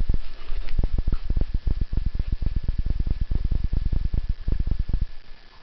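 A dog rolling and wriggling on a bed right against the camera: a rapid, irregular run of low thumps and bumps, several a second, easing off near the end.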